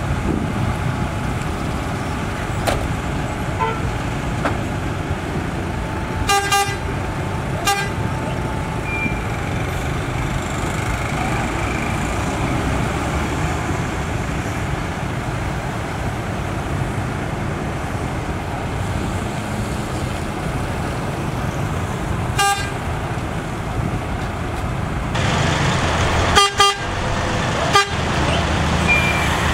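Heavy truck engine running steadily, with short horn toots: two about six to eight seconds in, one a little past twenty seconds, and two more near the end, when the engine grows louder.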